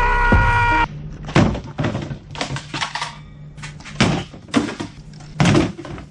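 Outro music: a loud held chord that cuts off about a second in, followed by sparse, uneven percussive hits.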